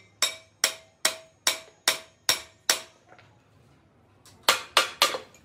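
Hammer blows on metal, each with a short metallic ring: a steady run of seven strikes at a little over two a second, a pause, then three quicker strikes near the end.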